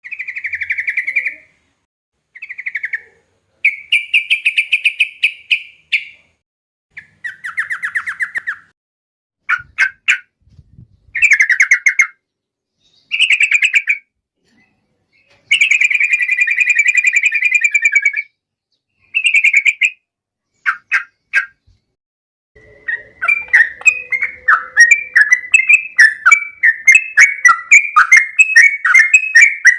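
Yellow-vented bulbul (trucuk) singing loudly in short phrases of fast bubbling notes, each a second or two long, with pauses between. About two-thirds of the way in it breaks into a long unbroken run of rapid chattering notes.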